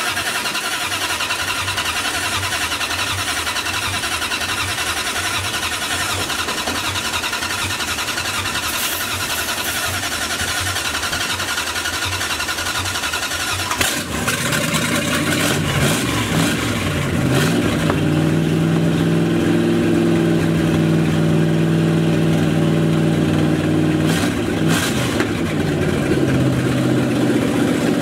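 Dodge D100 pickup's engine cranking on the starter for about fourteen seconds, then catching and running, revved up a couple of times. The long cranking before it catches is what the owner takes for a bad or failing ignition switch.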